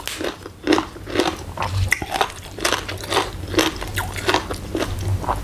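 Close crunchy chewing of raw vegetables and green papaya salad, about three sharp crunches a second.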